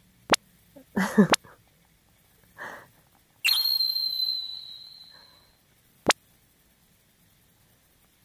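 A single high ringing tone starts sharply and fades away over about two seconds. Sharp clicks come near the start and again about six seconds in.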